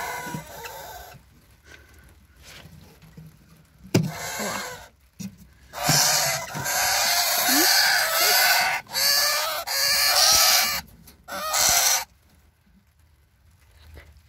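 Eastern rosella nestlings in a nest box giving loud, harsh, raspy calls in three runs between about six and twelve seconds in. A single knock comes shortly before, around four seconds in.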